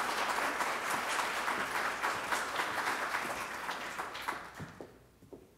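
Audience applauding with many hands clapping at once, the clapping dying away in the last second or so with a few last scattered claps.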